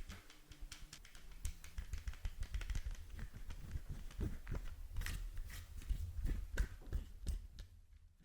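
Buttons on an old microphone clicking as it is handled: many sharp, irregular clicks over a low handling rumble, dying away near the end.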